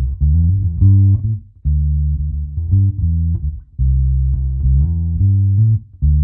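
Fender Vintera 60's Mustang short-scale electric bass played direct through an amp simulator with its tone knob rolled fully off: a dark, rounded bass line of plucked notes in short phrases, with little top end.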